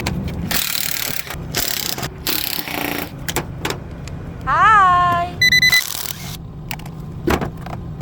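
Clicks, knocks and rattles of parts and tools being handled during an air-conditioner fan and parts replacement. About halfway through comes a short swooping tone that rises and then falls, followed at once by a few quick electronic beeps.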